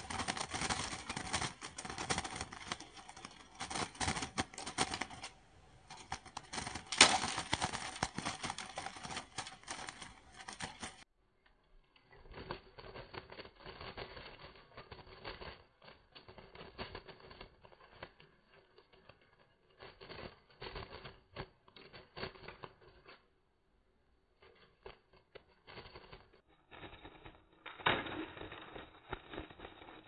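Rapid clicking and rattling of a bird's wings and feet beating against a wire cage trap, in uneven flurries with short pauses.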